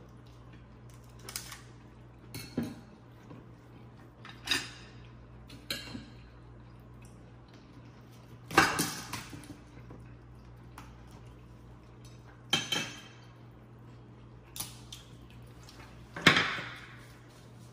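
Fork and knife clinking and scraping against a plate while picking at crab legs, in separate short clatters every second or two, the loudest about halfway through and near the end.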